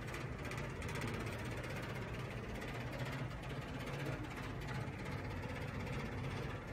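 Steady low hum and background noise of a running model railway layout.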